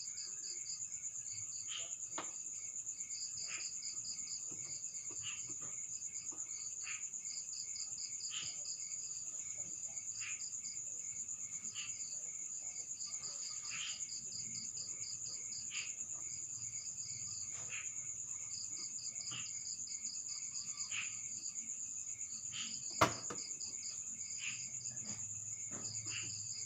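Insects, crickets by the sound of it, trilling steadily at a high pitch, with faint short ticks every second or two. One sharp click stands out near the end.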